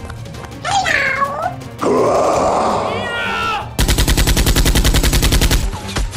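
A high, wavering cry that glides up and down, then a burst of rapid gunfire sound effects, about ten shots a second for about two seconds.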